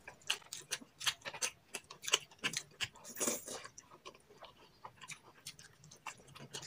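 Close-up eating sounds: irregular wet clicks and smacks of chewing, about two or three a second, with a short hissy noise about three seconds in.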